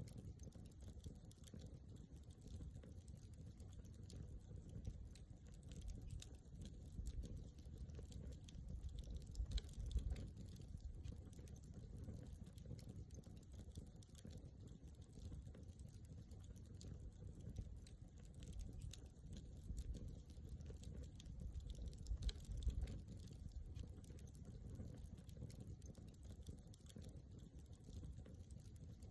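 Wood campfire crackling, with small irregular pops throughout over a low rumble of the flames, and a couple of louder snaps, one about ten seconds in and one a little past twenty-two seconds.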